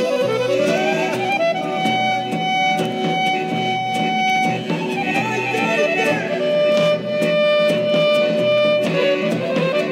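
Instrumental music: a violin plays the melody in long held notes with slides between them, over a rhythmic string accompaniment.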